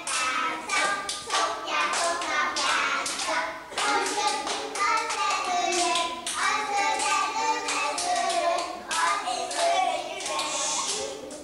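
A group of young children singing together while clapping their hands in a steady rhythm, a few claps a second.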